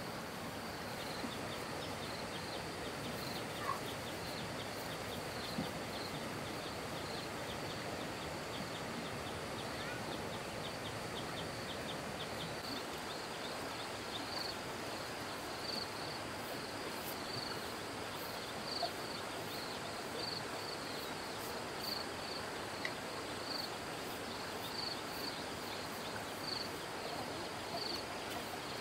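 Steady outdoor background hiss with insects chirping in short, high, evenly repeated notes that grow more distinct in the second half.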